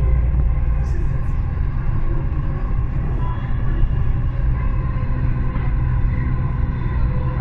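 Dubai Metro Red Line train running between stations, heard from inside the car: a steady, loud low rumble with a few faint steady tones above it.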